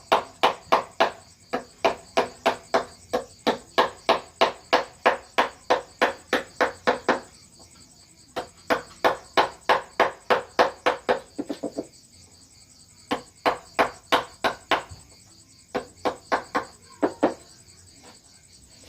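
Wooden mallet striking a carving chisel, sharp regular taps about three a second in runs of several seconds, with a quick flurry of lighter taps about eleven seconds in.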